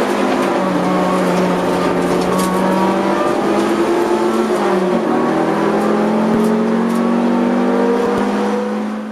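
Honda CR-X EE8's 1.6-litre VTEC four-cylinder engine heard from inside the cabin, pulling hard under acceleration. Its pitch holds steady, dips briefly about five seconds in, then climbs steadily, and the sound fades out at the very end.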